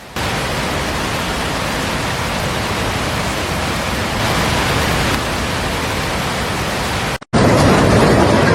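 A steady rushing noise like heavy rain or fast water. About seven seconds in it cuts out for a moment and comes back as a louder, deeper rushing.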